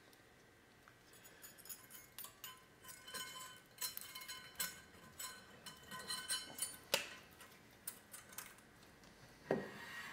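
Light metallic clicking and scraping as thin steel brake pad slide clips are pressed into a rear brake caliper bracket by hand. There is a sharper knock about seven seconds in and another near the end.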